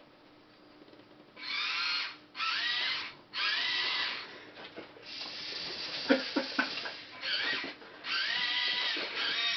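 Vexplorer remote-control robot's small electric gear motors whirring in a series of short bursts as it drives and swings its arm, the pitch rising and falling with each move. A few light knocks come about six seconds in.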